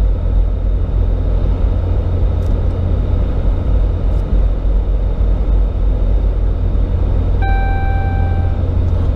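Steady low road and drivetrain rumble inside the cab of a Ram pickup on the move. About seven seconds in, a single dashboard chime sounds for about a second, as the tire-pressure display updates with new sensor readings.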